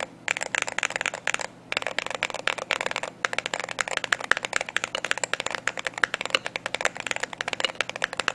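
Typing on an MCHOSE Ace68 GT keyboard: a fast, dense run of key clicks, with two short pauses about one and a half and three seconds in.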